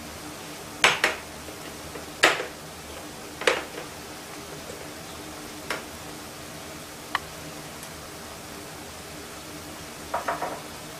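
A slotted spoon knocking and clinking against a frying pan about six times, the loudest knocks in the first few seconds, over a steady low hiss from the potatoes frying in oil.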